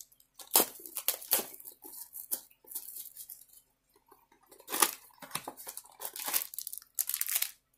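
Plastic wrapper of a trading-card pack being torn open and crinkled by hand, in irregular crackles with short pauses between them.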